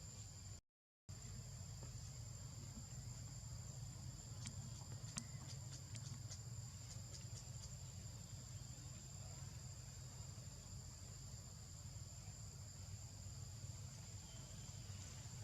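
Steady high-pitched chorus of insects in the forest, with a constant low rumble beneath and a few faint clicks in the middle. The audio drops out briefly about a second in.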